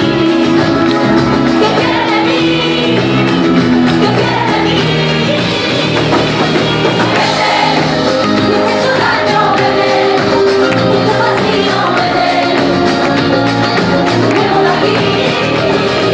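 A live band playing a flamenco-style pop song, with a woman singing lead into a microphone over electric and Spanish guitars, keyboard and drums.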